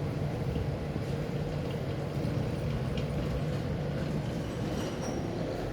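Steady low rumble and hum of urban background noise, with a few faint ticks.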